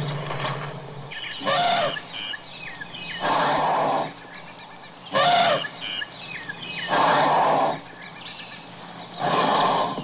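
Elephant calls repeated about every two seconds, five in all. Some are pitched and trumpet-like, the others noisier, with faint bird chirps between them.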